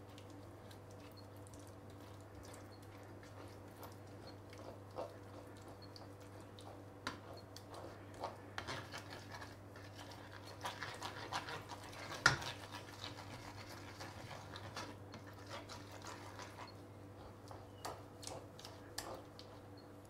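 Tomato paste frying in a little oil in a stainless-steel pan, stirred and pressed with a spoon that scrapes and taps on the pan's bottom. The scraping gets busier midway, with one sharper knock about twelve seconds in, over a steady low hum.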